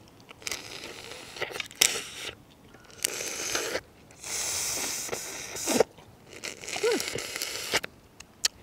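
Crawfish shells cracking and crunching as the cooked crawfish are twisted apart, peeled by hand and bitten: irregular bursts of crackly crunching with sharp clicks.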